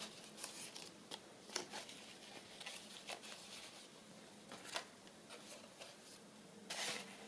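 Faint rustling and light taps of paper journal cards and tags being handled and sorted, with a louder rustle of paper near the end.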